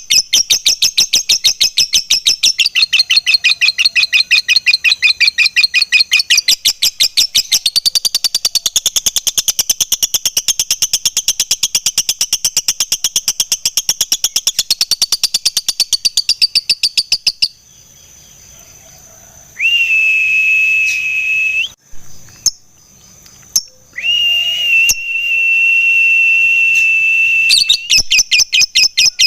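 Lovebird chattering in its long 'ngekek' song: a fast, unbroken run of sharp, high repeated notes lasting about seventeen seconds. After a short pause come two long, steady, high whistled notes, and near the end the rapid chatter starts again.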